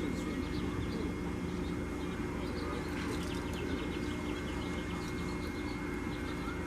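Small birds chirping in short, repeated calls over a steady mechanical hum, with the chirps busiest in the middle of the stretch.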